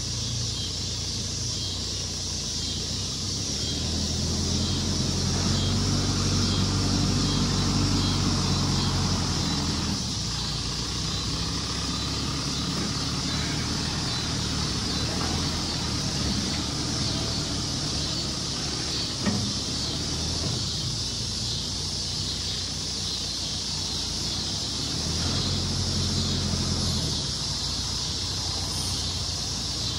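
John Deere 5100E tractor's four-cylinder turbo diesel running as it grades dirt with its front loader, working harder and louder from about four seconds in and again near the end, over a steady high hiss.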